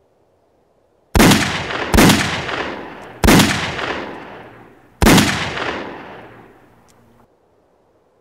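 Four rifle shots, unevenly spaced over about four seconds, each followed by a long echoing decay that runs into the next. The last echo cuts off suddenly.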